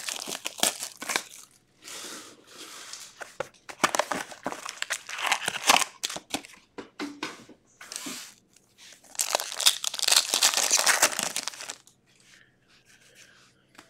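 Cardboard hockey-card box being opened and foil card packs crinkling and tearing as they are handled and ripped open, in irregular rustling bursts that fade to faint handling near the end.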